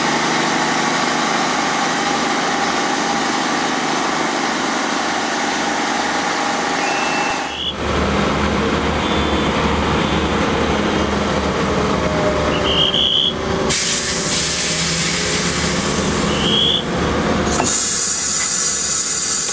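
Diesel multiple unit engines idling steadily with a low, regular throb. Short high squeals are heard twice near the middle, and a loud hiss near the end.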